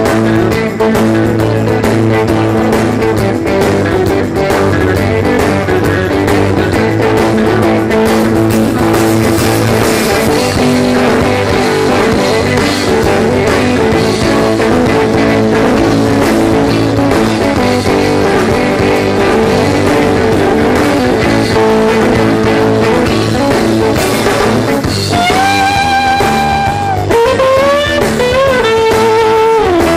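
Live rock band playing an instrumental passage, guitars to the fore. Near the end a lead melody with bending, sliding notes comes in over the band.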